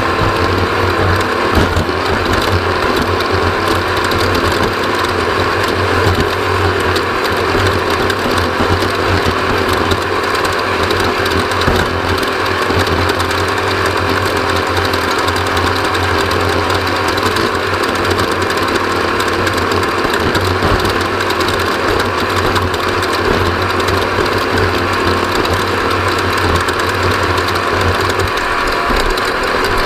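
Off-road race vehicle running hard at speed: a steady engine drone mixed with constant rapid clatter.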